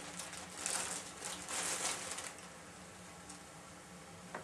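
Kitchen handling noise at the stove: a couple of short rustling, scraping bursts in the first two seconds, then quieter, over a faint steady hum.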